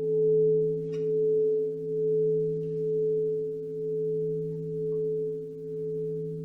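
Singing bowl ringing on after being struck, a low steady chord of a few tones. Its loudness wavers about once a second and slowly fades.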